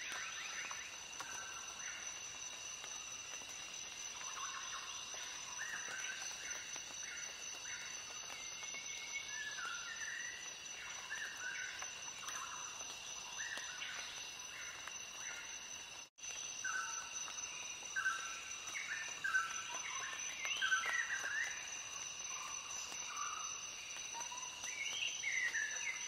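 Nature ambience: a steady high insect drone with birds calling in short chirps, some sliding in pitch. The sound cuts out for an instant about two-thirds of the way through.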